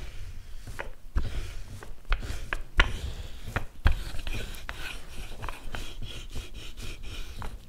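Wooden rolling pin rolling whole-wheat bread dough on a wooden board: a low rubbing rumble, with several sharp wooden knocks along the way.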